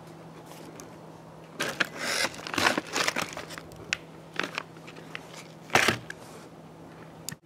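Plastic MRE packaging crinkling as it is handled, in several irregular short bursts, the loudest about two to three seconds in and again near six seconds.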